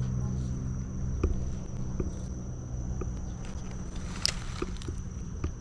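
Soft, scattered clicks and knocks of a spinning rod and reel being handled while working a lure, about one a second, over a steady high whine. Low background music fades out in the first second or two.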